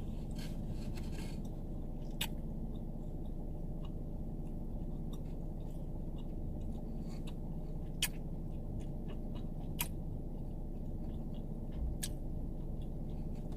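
Steady low hum inside a car, with a few scattered sharp clicks and faint small handling noises.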